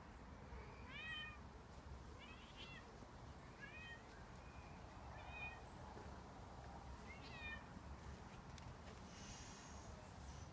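A kitten meowing, five short, faint, high calls spaced a second or two apart.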